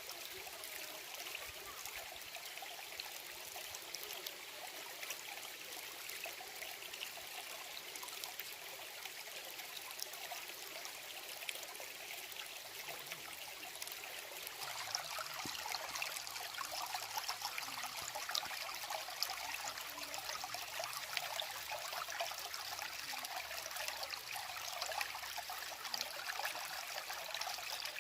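Shallow stream of running water trickling and babbling steadily. About halfway through it grows louder and fuller.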